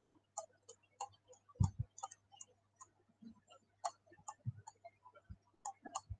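Faint, irregular clicking of a computer mouse scrolling through a document, a few sharp clicks a second, over a steady low electrical hum. A dull knock stands out about a second and a half in.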